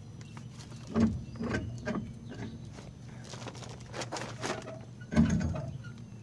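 Heavy rear brake drum being worked off the axle hub by hand: a few dull metal knocks, then a stretch of scraping and rattling, then a heavy clunk about five seconds in.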